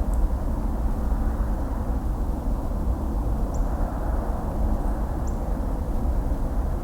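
Distant highway traffic: a steady, even rumble of tyre and engine noise, heaviest in the low end, with a few faint short high chirps over it.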